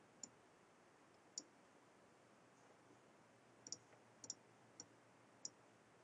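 Faint, sharp clicks of a computer mouse button, about eight in all, scattered through the stretch and some in quick pairs like double-clicks, over near-silent room tone.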